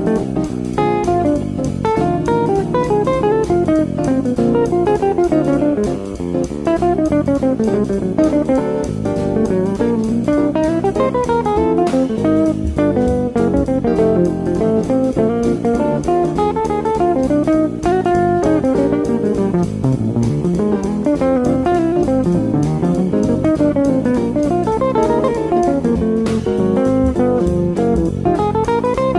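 Instrumental music led by a plucked guitar melody, with light drums behind it.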